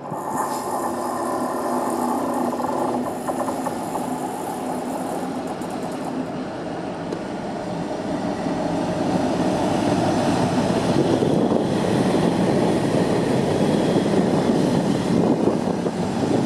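British Rail Class 60 diesel-electric locomotive passing close by at the head of a freight train, its eight-cylinder Mirrlees diesel engine running. A steady pitched engine note is clear for the first few seconds, then a louder, rougher rumble of engine and wheels on the rails builds as the locomotive comes alongside.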